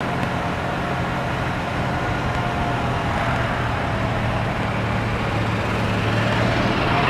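Golf cart running along a paved drive: a steady motor hum over even tyre and road noise.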